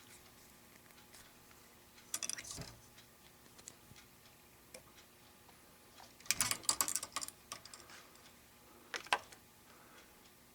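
Faint clicks and small rattles of fly-tying tools and thread being handled at the vise: a short cluster about two seconds in, a longer run of rattling clicks around six to seven seconds in, and a sharp double click near the end.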